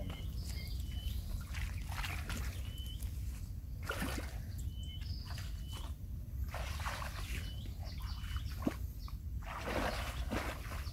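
Shallow water sloshing and splashing, with leaves rustling, as a person wades through water hyacinth to set a wire-mesh frog trap. The noise comes in irregular swishes, strongest about four, seven and ten seconds in. A small bird repeats a short high call about every second and a half.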